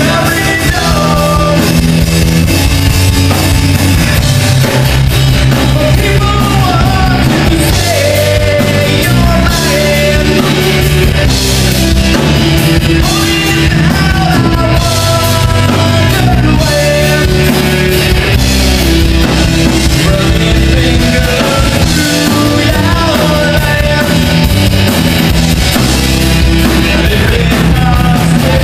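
Live rock band playing with a lead singer: acoustic and electric guitars, bass guitar and drum kit. The music is loud and continuous.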